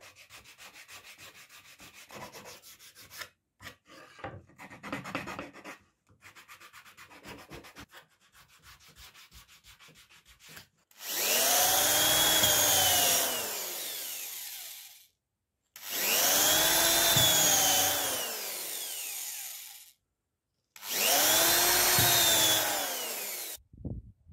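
Quiet, quick rubbing strokes of sandpaper worked by hand over a plywood edge. Then an electric drill boring three holes into a thin wooden strip, each run a loud whine that climbs in pitch and falls away as the motor spins up and slows.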